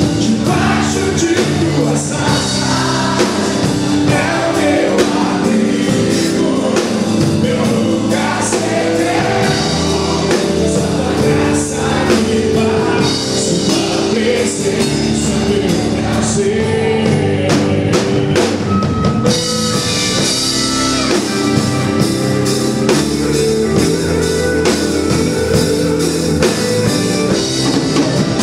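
Live worship band playing a rock-style song: strummed acoustic guitar, electric guitar, bass and drum kit, with singing.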